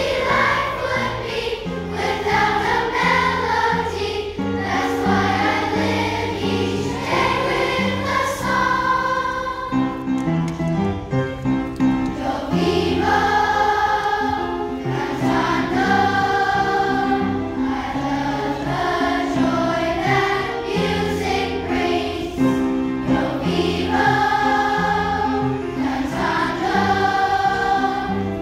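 Large massed school choir of children and teenagers singing together in sustained, flowing phrases.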